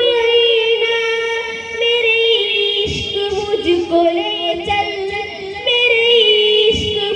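A boy singing an Urdu naat solo into a microphone, holding long wavering notes with few clear words.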